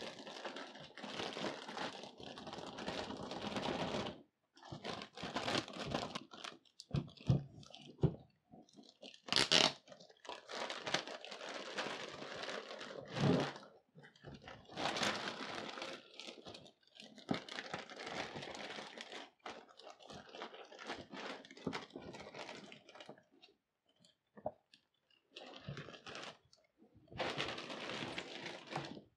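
Clear plastic bag crinkling and rustling in stop-start spells as it is handled and worked off a boxed figure, with a few dull thumps along the way.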